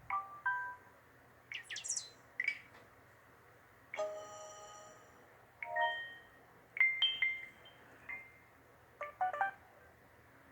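Samsung Conquer 4G phone playing its built-in notification sounds one after another: about seven short electronic chimes, chirps and beeps, most well under a second and one held chord lasting about a second, with short pauses between them.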